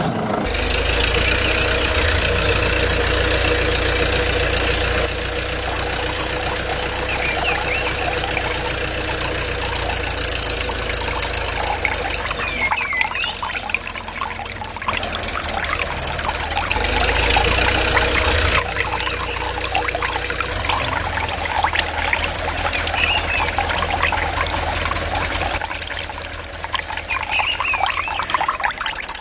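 Miniature water pump belt-driven by a toy tractor's motor, running steadily with a low hum, while water pours and splashes from its outlet into a flooded field.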